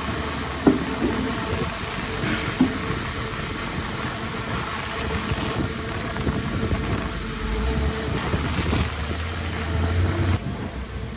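Heavy diesel earthmoving machinery running and working, with a few clanks in the first seconds and a brief hiss about two seconds in. The sound drops off abruptly near the end.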